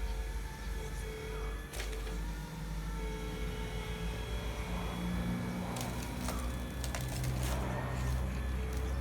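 Hydraulic pump of a radio-controlled CAT excavator whining steadily, its lower hum shifting in pitch as the load changes. There are sharp clicks and scrapes about two seconds in and a cluster of them from about six to seven and a half seconds in.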